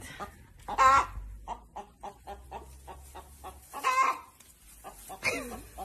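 Hen clucking in quick short notes, with three louder drawn-out calls at about one, four and five seconds in.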